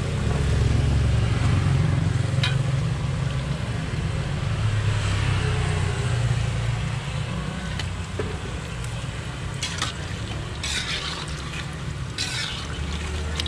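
Pastry rolls deep-frying in a wok of hot oil, sizzling steadily. A metal ladle stirs them, scraping and knocking against the wok now and then, mostly near the end, over a steady low rumble.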